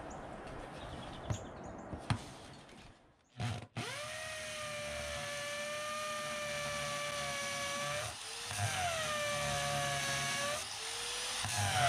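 Cordless drill boring a hole into a concrete step: the motor spins up about three seconds in and runs at a steady whine, slows and picks up again about halfway through, then starts again near the end.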